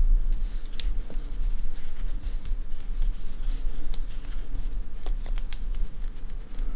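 Yarn and a wooden crochet hook being worked by hand: soft rustling and scattered faint clicks as the hook goes through the stitches, over a steady low hum.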